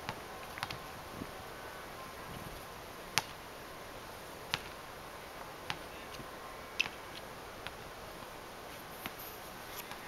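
Steady faint outdoor hiss with a scattering of sharp clicks or taps, irregularly about a second apart, the loudest about three seconds in.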